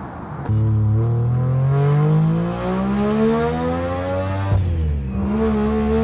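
Mazda RX-7's turbocharged three-rotor rotary engine accelerating hard under boost, its pitch climbing steadily. It breaks off briefly at a gear change about four and a half seconds in, then climbs again. A quieter, steady engine sound comes before it, for the first half second.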